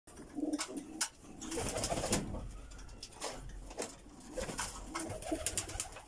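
Jacobin pigeons cooing in low, repeated coos, with a few short sharp clicks in between.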